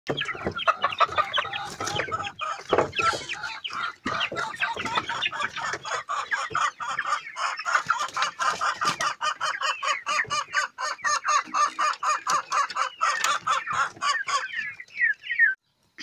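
A large flock of chickens clucking and chirping, many short calls overlapping densely; it cuts off suddenly near the end.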